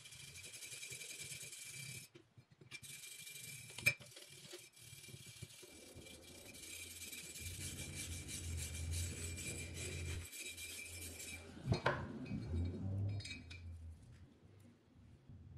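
Rusty steel axe head being hand-sanded with an abrasive-wrapped wooden tool: a steady scratchy rubbing of abrasive on metal. It breaks briefly about two seconds in and stops after about eleven seconds, followed by a sharp knock.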